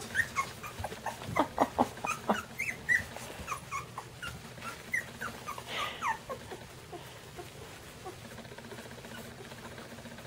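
Young Miniature Schnauzer puppies whimpering: many short high-pitched cries, several falling in pitch, coming thick and fast for the first six seconds or so and then thinning out.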